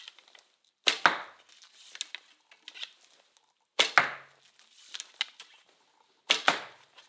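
Three arrows shot from a traditional bow, a few seconds apart: each time a sharp snap of the released bowstring, followed a fraction of a second later by the thud of the arrow striking the target.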